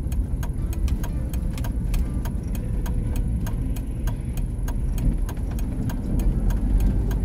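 Campervan driving, heard from inside the cab: a steady low engine and road rumble, with frequent small rattling clicks several times a second.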